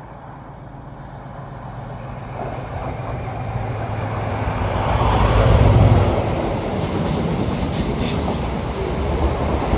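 Diesel passenger train approaching and running through the station: a low engine rumble building to its loudest about six seconds in, then the wheels clicking over the rail joints as the carriages pass.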